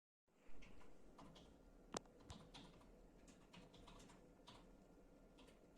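Faint, scattered small clicks and taps, with one sharper click about two seconds in, over a low steady background hum.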